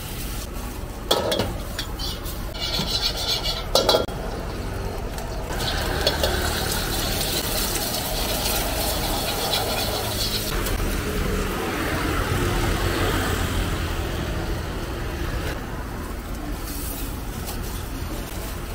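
A steel ladle clanking and scraping in a wok over the steady roar of a gas burner, with hot oil and egg sizzling. Sharp clanks come about a second in and again near four seconds.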